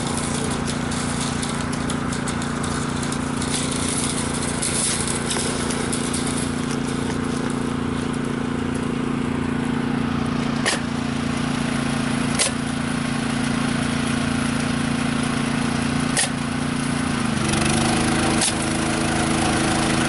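Tractor engine running steadily, its note shifting a little near the end, with a few sharp clicks over it.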